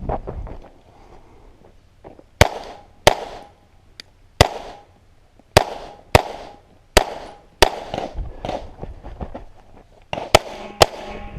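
Pistol shots at an IDPA action pistol stage: about nine sharp cracks, mostly fired in pairs about half a second apart, with pauses of a second or more between the pairs.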